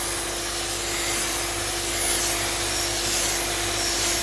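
SB28 suction-fed blast gun spraying aluminium silicate abrasive with compressed air onto metal, a steady hiss, over the even hum of the pot's built-in vacuum.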